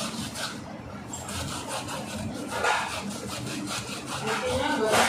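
Peeled cassava root grated by hand on a metal box grater: repeated rasping strokes.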